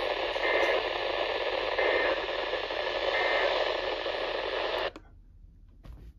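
Static hiss from a Midland NOAA weather radio on poor reception, with three faint short tones about a second and a half apart; the hiss cuts off suddenly about five seconds in.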